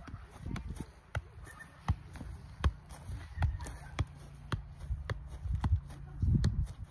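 Volleyball being kicked up repeatedly with the feet, a short dull thud at each touch, coming roughly every half second to second.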